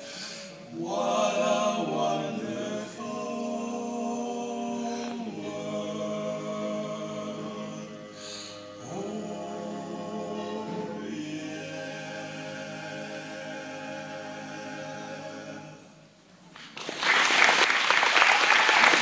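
A cappella vocal group singing sustained chords, ending on a long held chord. Applause breaks out about two seconds before the end.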